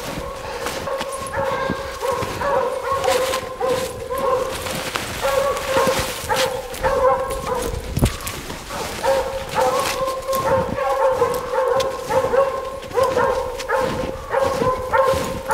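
Hunting hounds baying nonstop at a treed mountain lion, several dogs' long, drawn-out calls overlapping, with footsteps crunching through deep snow.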